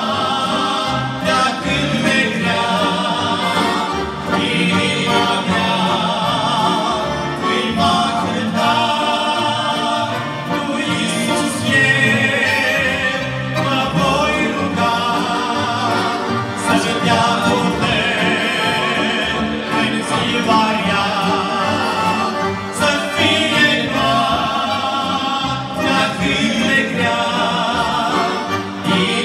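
Men singing a Romanian hymn together, accompanied by two piano accordions.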